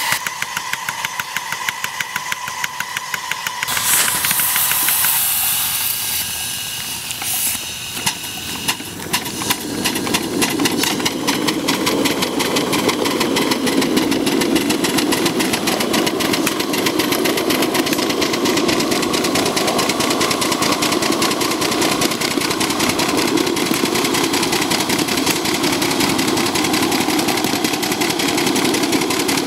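Live-steam scale model of ET&WNC No. 12, a 4-6-0 ten-wheeler, running down the track with a fast, even beat of exhaust chuffs from the stack. A short loud hiss of steam comes about four seconds in and a smaller one near eight seconds, before the steady beat takes over.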